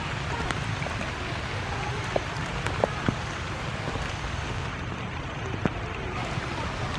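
Steady rain: an even hiss with scattered sharp ticks of drops hitting close by, over a low rumble.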